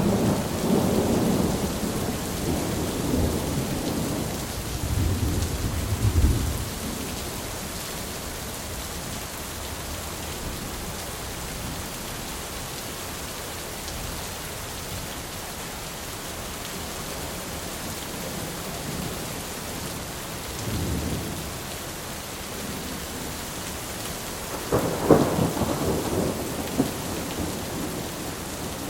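Steady rain during a thunderstorm with rolling thunder: a rumble at the start, a deeper one about six seconds in, a brief one around twenty-one seconds, and the loudest, sharper thunderclap rolling off about twenty-five seconds in.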